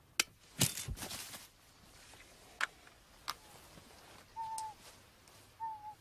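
Radio-controlled eagle trap being sprung: a sharp snap, then a brief rush of noise with a low thud as it closes over the eagle, followed by a couple of clicks. Near the end come two short whistled bird calls.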